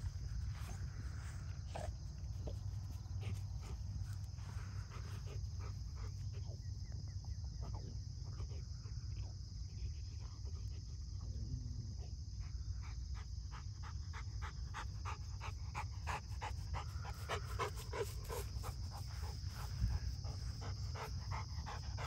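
Rottweiler sniffing around in grass and panting, the panting quick and steady in the last several seconds, over a steady low rumble.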